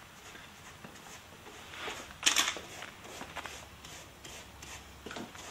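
Faint rubbing and scraping from brushwork and handling at a painting table, with one short, sharp clatter a little over two seconds in.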